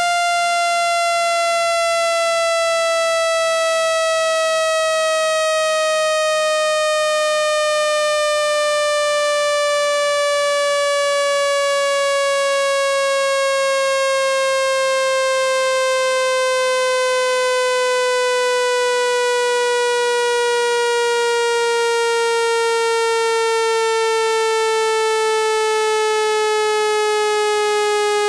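Generated buzzy test tone with a stack of overtones, held at an even loudness and sliding slowly and steadily down in pitch. It is a water-eject speaker-cleaning sound, played loud so the vibration pushes trapped water out of a phone's speaker.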